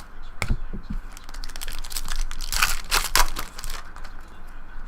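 Trading cards and their plastic wrapper or sleeves being handled: a sharp click near the start, then a burst of crinkling and rustling about two and a half seconds in that lasts over a second.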